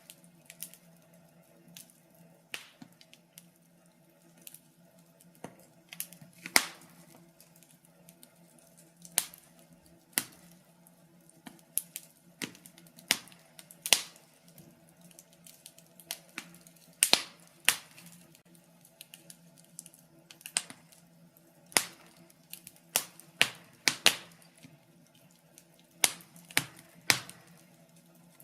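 Wood fire crackling in a fireplace: irregular sharp pops and snaps, several a second at times, with some louder pops, over a faint steady low hum.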